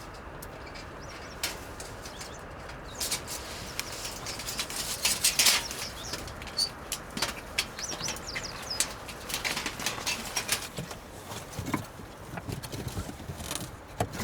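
Wood campfire crackling and popping, the pops sparse at first and coming thickest about five seconds in, with a few short high bird chirps.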